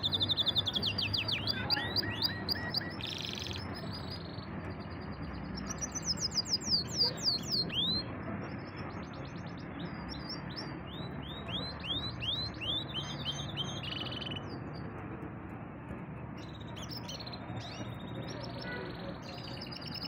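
Domestic canary singing: fast trills of rapidly repeated high notes and sliding whistles, loudest in the first couple of seconds and again about a third of the way in, then sparser, quieter phrases.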